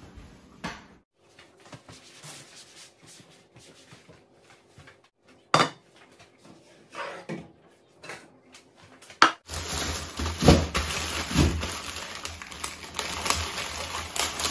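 Kitchen worktop handling: scattered clicks and a couple of sharp knocks as a bowl and a wooden chopping board are set down. From about nine and a half seconds in there is a denser, louder clatter and rustle as a plastic bag of potatoes is slit open with a knife.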